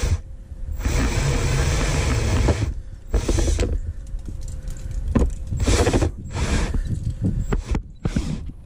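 Electric drill with a step bit boring through a plastic boat hull. It runs steadily for about two seconds, stops, then comes in several short bursts as the hole is opened up.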